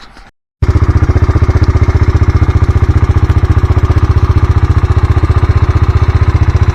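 An engine idling close by, with a fast, even throb, starting abruptly after a brief silence about half a second in.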